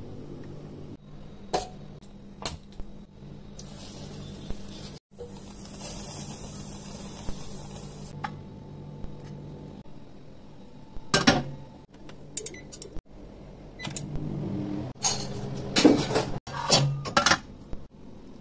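Dishes and cutlery clinking and clattering in a few short bursts, the loudest in the second half, over a steady low hum. About four seconds in there are several seconds of hiss.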